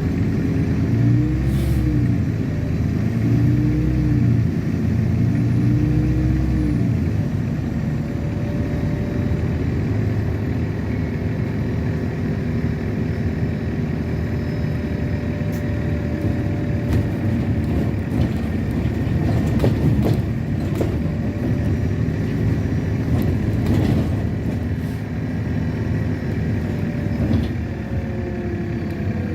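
Ride inside a LiAZ-6213 articulated city bus on the move: steady engine and road rumble. The engine's pitch rises and falls several times in the first seven seconds or so, and the body rattles and clicks now and then in the middle.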